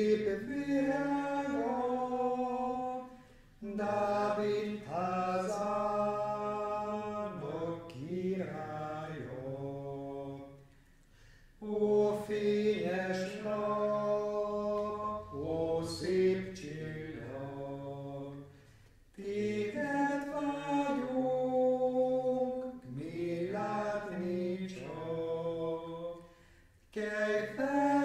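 Men's voices singing a Hungarian Advent hymn unaccompanied, in long held phrases with a short pause about every eight seconds.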